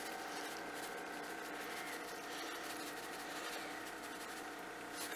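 Quiet, steady room tone with a faint hum and no distinct event.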